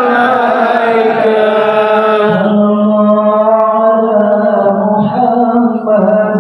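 Devotional Arabic chanting of shalawat, praises of the Prophet, sung unaccompanied in long held notes that slide slowly up and down.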